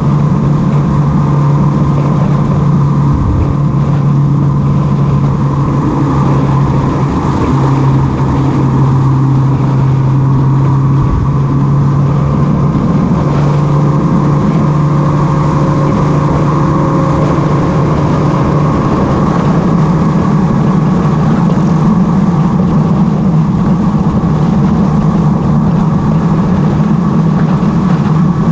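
Motorcycle engine running steadily while riding at cruising speed, with wind and road noise over it; its note steps higher about two-thirds of the way through.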